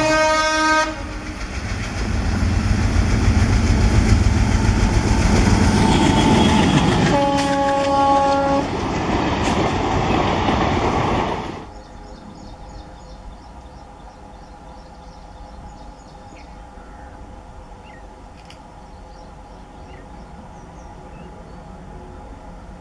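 ALCO WDM-3A diesel locomotive passing close at speed, its engine and wheels making a loud rumble, with a horn blast ending in the first second and another horn blast of about a second and a half some seven seconds in. The loud pass cuts off abruptly near the middle, leaving a faint, steady distant diesel hum.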